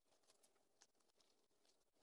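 Near silence, with a few faint rustles and taps of a glued newspaper scrap being handled against a rubber balloon.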